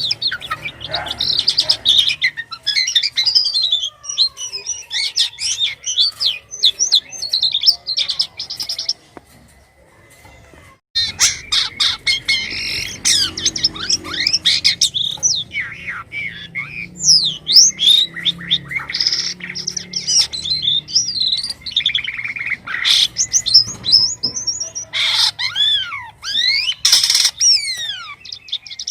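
Jalak kapas starling singing a long, varied song of rapid chirps, whistled slides and squeaky, rasping notes, with a pause of about two seconds a third of the way in.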